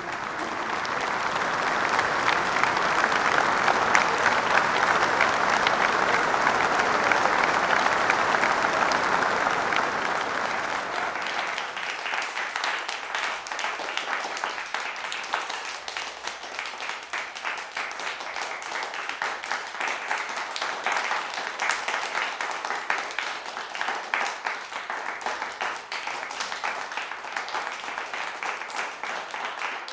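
Crowd applauding: a dense, loud ovation for about the first ten seconds that then thins and quietens into scattered individual claps, cutting off abruptly at the end.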